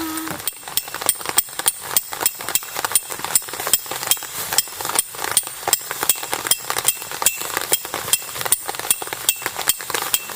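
A hammer striking metal in a steady run of blows, about four a second. Each blow has a short, high, metallic ring.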